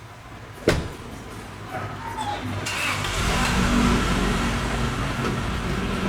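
A sharp click, then from about three seconds in a steady hiss over a low machine rumble.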